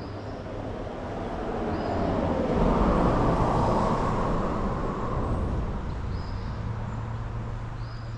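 A vehicle passing on a road, swelling to its loudest about three seconds in and then slowly fading away. Faint high chirps repeat above it.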